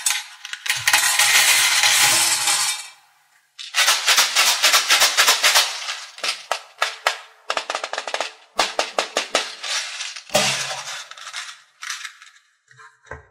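Small plastic beads rattling and clattering inside hollow glitter-coated plastic eggs as they are handled and opened. There are two long runs of dense rattling, then a string of separate clicks and clatters of beads and plastic shell.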